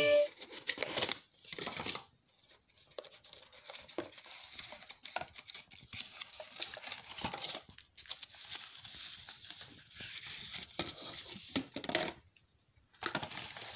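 Cardboard smartphone box and its paper inserts being handled: irregular rustling, scraping and light knocks as the inner tray and a leaflet are lifted and moved, with a few short pauses.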